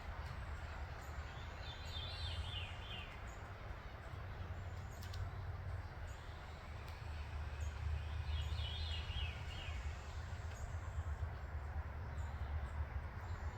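Backyard ambience: a songbird sings a short, rapid phrase twice, once about two seconds in and again about seven seconds in, over a steady low rumble. A few faint high chirps are heard between the phrases.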